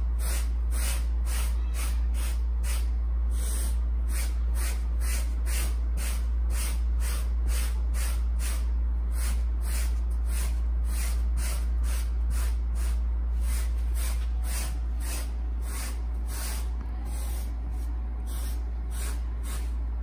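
Soft-bristled hand brush scrubbing fabric sofa upholstery in quick back-and-forth strokes, about two a second, each one a short swish. A steady low hum runs underneath.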